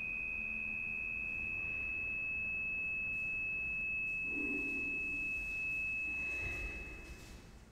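A single high, pure, steady tone, held at one pitch and fading away near the end.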